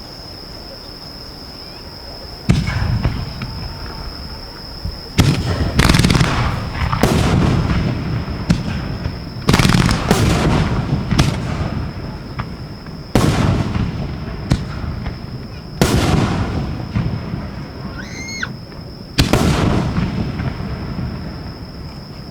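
Aerial fireworks shells going off at close range: about a dozen sharp booms, some in quick succession, each dying away in a rumble. There is a brief rising whistle near the end.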